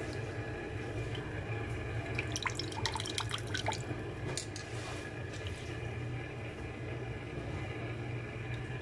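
A hand squeezing and swishing grated coconut in water in a metal pot to draw out coconut milk: wet sloshing, with a run of drips and small splashes about two to four seconds in. A steady low hum runs underneath.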